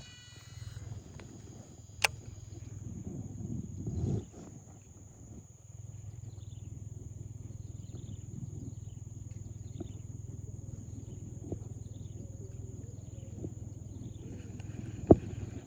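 Steady high-pitched insect drone over a low rumble, with faint short falling chirps. A sharp click comes about two seconds in and a louder one near the end.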